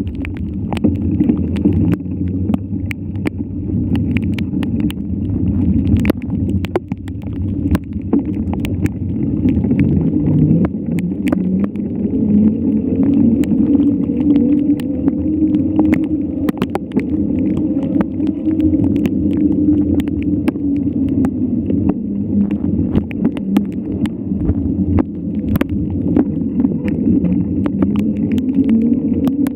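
A motor running steadily, its pitch slowly rising and falling, with frequent knocks and rattles.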